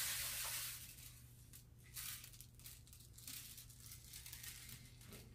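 Rice grains falling through a homemade cardboard-tube rain stick as it is tipped, striking the paper-covered ends. A falling hiss fades within the first second, then gives way to a scattered light patter of grains.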